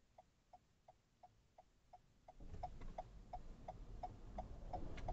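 Car turn-signal indicator ticking steadily, about three ticks a second, signalling a right turn. About two and a half seconds in, low engine and road noise rises beneath it.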